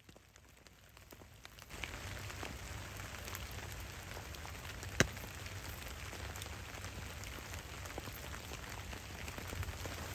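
Steady patter of rain with fine crackling. It is quiet for the first couple of seconds, then comes in steadily. A single sharp pop comes about five seconds in.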